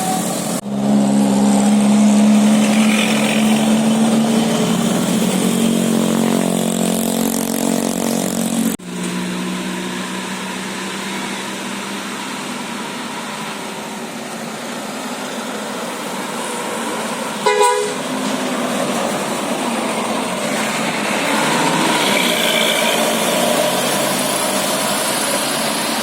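Tour bus's musical "telolet basuri" air horn holding a loud chord for about eight seconds, then cutting off abruptly. Steady vehicle noise follows, broken by one short horn toot about two-thirds of the way through.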